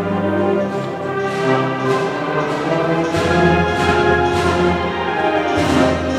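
Slow, solemn band music led by brass, holding long chords over a strong bass line, with a percussion stroke roughly once a second, in the manner of a Holy Week processional march.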